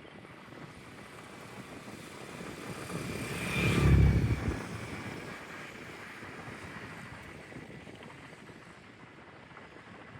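Propeller aircraft flying past low: the sound grows louder, peaks about four seconds in and fades away.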